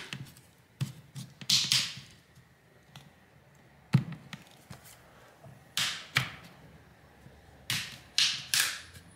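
Plastic pry pick scraping and clicking along the seam of a phone's plastic back cover as it is worked loose: a string of short scrapes and sharp clicks, the sharpest about four seconds in, with a cluster of scrapes near the end.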